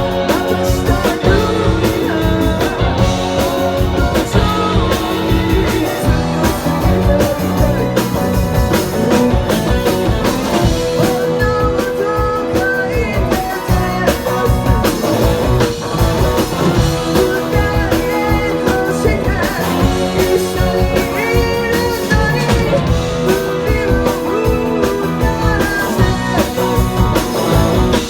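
A live rock band playing a song, with a singer's voice carrying the melody over guitar and a steady drum beat.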